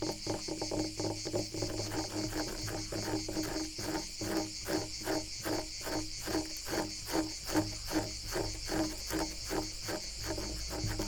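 Wood being scratched in a steady rhythm of about three strokes a second, over a continuous high chirring of crickets or other insects.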